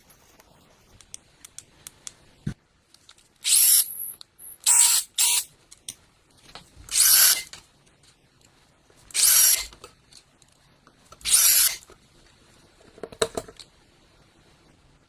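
Restored Fein ASM14-6 cordless drill/driver run in short trigger bursts, about six times, each lasting under a second, with a few clicks near the end.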